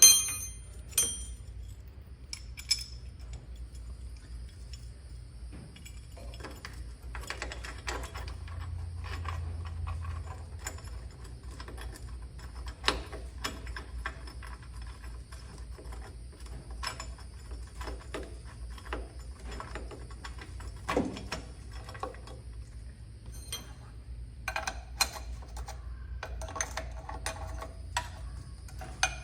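Metal hand tools and small metal parts clinking, clicking and knocking at irregular intervals over a steady low hum, with a denser run of clinks near the end.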